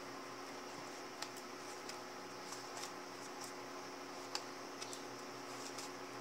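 Scattered light clicks and taps as a paper notebook is handled and slipped into a faux leather cover, over a steady background hum.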